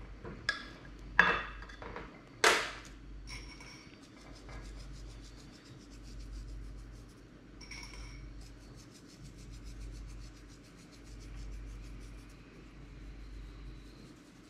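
Kitchen dishes and utensils clinking as they are handled on a counter: three sharp clinks with a short ring in the first few seconds, the loudest about two and a half seconds in. After that comes a long run of faint, rapid ticking.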